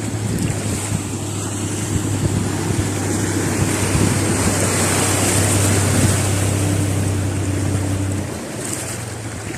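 Heavy rain with wind buffeting the microphone, a loud steady rush of noise. Under it runs a steady low hum that stops about eight seconds in.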